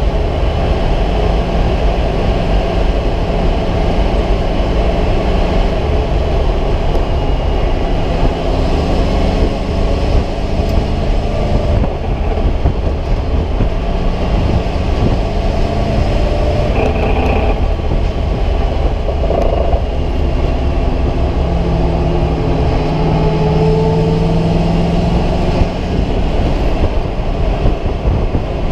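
Race car engine running hard at track speed, heard from inside the stripped, caged cockpit, mixed with heavy wind and road noise. The engine note moves up and down in pitch several times through the stretch.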